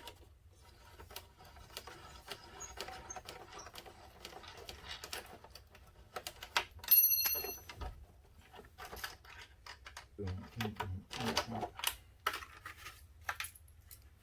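Hand tools and loose fasteners clicking and clattering while a motorcycle's fairing is taken apart. About seven seconds in, a metal piece rings out sharply, the loudest sound.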